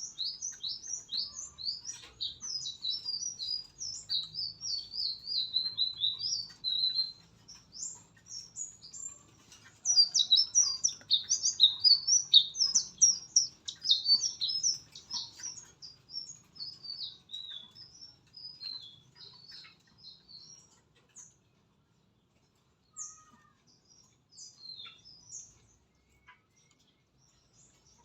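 Small songbird giving rapid, high-pitched chirping and twittering phrases, loudest in the middle and thinning to scattered notes with short pauses near the end.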